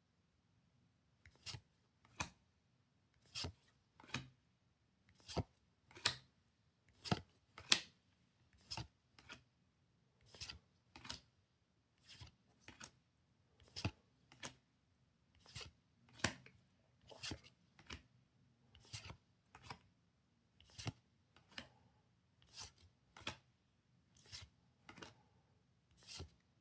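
Pokémon trading cards being slid one at a time off a stack, each giving a short crisp swish of card against card, about one or two a second.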